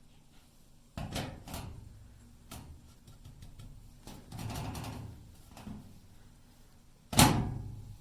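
Handling noises: a few clicks and knocks, a longer rustle or scrape about four seconds in, and a sharp, loud knock about seven seconds in. No alarm beep sounds.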